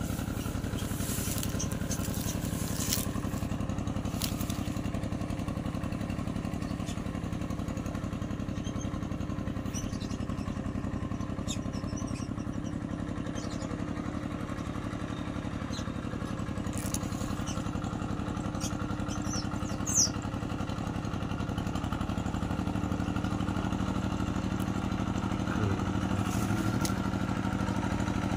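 Tractor engine running steadily while ploughing a flooded rice field. A brief sharp click comes about 20 seconds in.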